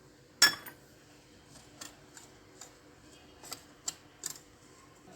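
A utensil clinks sharply against a mixing bowl about half a second in. Lighter, irregular ticks and taps follow as dry flour, sugar and baking powder are stirred together in the bowl.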